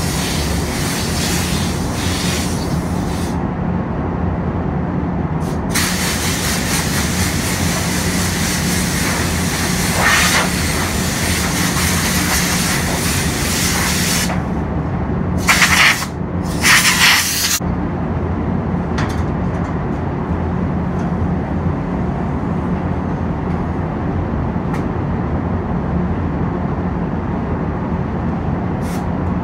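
Compressed air hissing from a hand-held air gun as the car's panels are blown off before painting. It comes in long spells, then two short, louder blasts about halfway through, over the steady hum of the spray booth's ventilation fans, which runs on alone through the second half.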